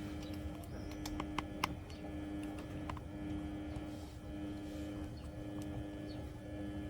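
A steady low hum with a few short clicks, three close together about a second and a half in and one near three seconds.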